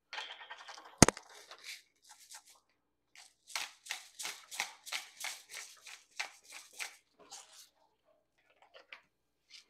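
Pepper grinder grinding black peppercorns: a short rasping grind, one sharp click about a second in, then a run of quick crunching twists, about three a second, that thins out near the end.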